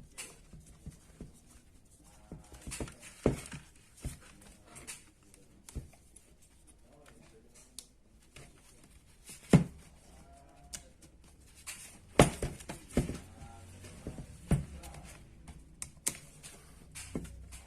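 Scattered clicks and knocks of small parts being handled, the loudest knock about halfway through.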